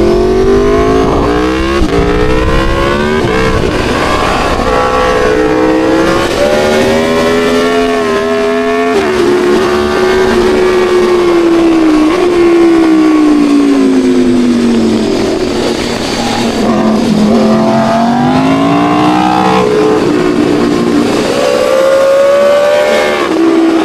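Sport motorcycle engine ridden hard: the pitch climbs and drops back at each gear change, falls away slowly through a long slowing stretch in the middle, then climbs again through more gears.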